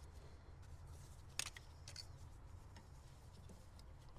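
Faint clicks and handling noises of hands working plastic engine-bay parts, with one sharper click about a second and a half in, over a low steady hum.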